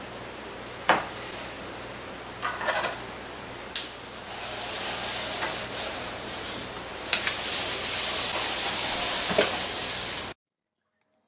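A few light taps and knocks from a pencil, paper and glass petri dishes being handled on a tabletop, over a steady hiss that grows louder about four seconds in. The sound cuts off abruptly near the end.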